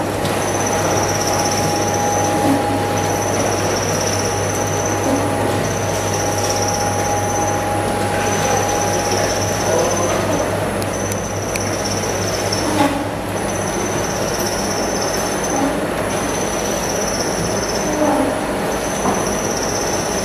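Screw oil press running steadily with a low hum, over which a high whine pulses on and off about every two seconds, and a few short clanks.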